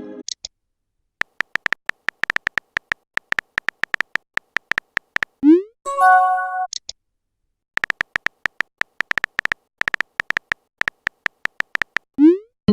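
Smartphone keyboard tap clicks, several a second, as a text message is typed. About five and a half seconds in, a short rising swoosh of a message being sent is followed by a brief chime, and the typing clicks start again about two seconds later.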